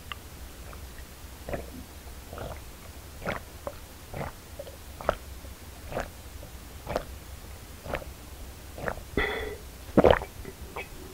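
A person gulping down a drink in one long go, with a swallow about once a second.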